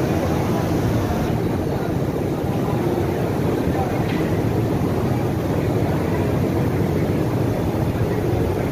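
Steady background din of a busy indoor exhibition hall: many indistinct voices blended into a continuous low rumble.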